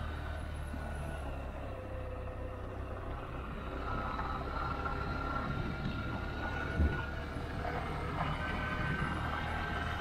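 A motor vehicle running steadily with a low engine hum and a faint whine, and a single knock about seven seconds in.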